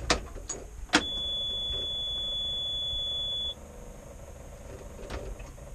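Ignition key clicks twice, then the CAT 304CR excavator's cab warning buzzer sounds one steady high beep for about two and a half seconds and cuts off. The starter does not crank, the sign of the machine's intermittent starter motor fault, here a blown starter-motor fuse.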